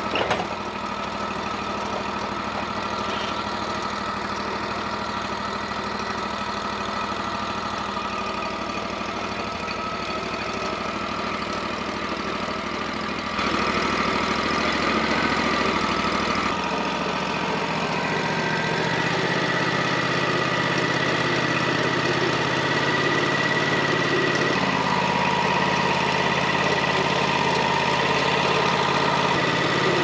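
Wood-Mizer LT40 portable sawmill running steadily. It gets louder and shifts about 13 seconds in, changes again around 17 seconds, and a steady high whine runs over the later part.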